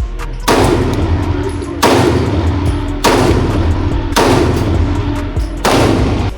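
Five 9mm pistol shots fired at a slow, uneven pace, a second or more apart, each followed by a smear of echo as it dies away. Steady background music plays underneath.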